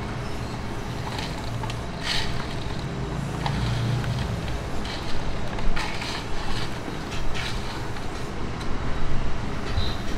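Steady low rumble of a street-food stall's surroundings, with scattered short metal clinks and rattles of utensils and trays.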